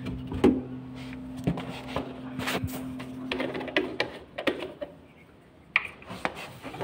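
Knocks and clatter of a plastic floor-cleaner jug being picked up and handled, over a steady low hum that stops about four seconds in.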